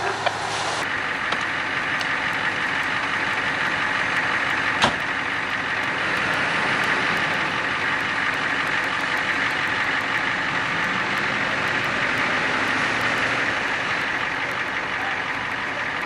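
Fire engine running steadily, a constant even noise with no change in pitch, broken once by a single sharp knock about five seconds in.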